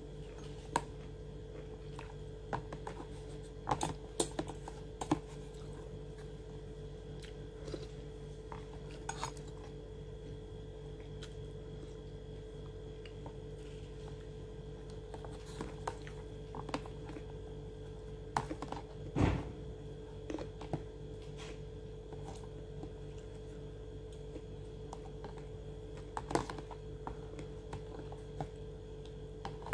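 Scattered light clicks and clinks of food being handled and eaten, with some chewing, over a steady low hum. A single louder knock comes about two-thirds of the way through.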